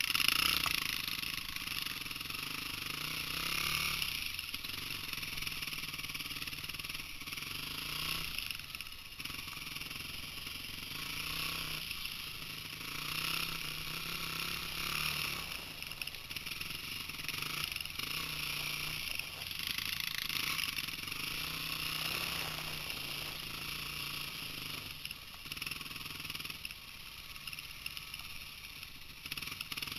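Small dirt bike engine running, its sound swelling and easing every few seconds as the throttle is opened and closed.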